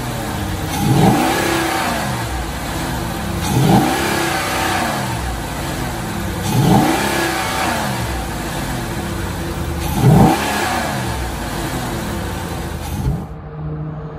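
Ram 2500's 6.4-litre Hemi V8 with an S&B cold air intake, heard from the open engine bay, idling and blipped four times. Each rev rises and falls in pitch, about three seconds apart.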